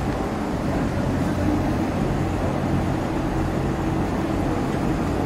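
Steady low machine hum under a constant wash of background noise.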